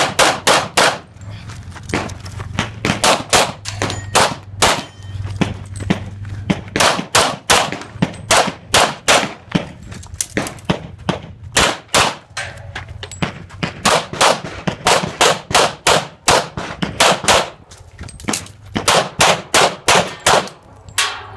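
Semi-automatic pistol fired in rapid strings during a practical shooting stage: several dozen sharp shots, many in quick pairs, with a short break about three-quarters of the way through before the firing resumes.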